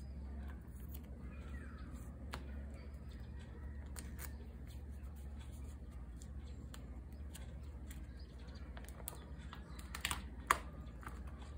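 Light, scattered clicks and taps of photocards in plastic sleeves being handled and sorted, with two sharper clicks a little before the end.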